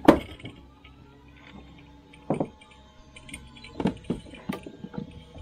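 Scattered knocks and taps of gear being handled on a fishing boat deck: one sharp knock at the start, another a couple of seconds in, and a cluster about four seconds in, over a faint steady hum.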